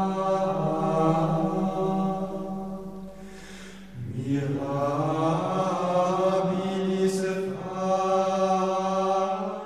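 Background music of slow, sustained chant-like singing, long held notes with a new phrase starting about four seconds in.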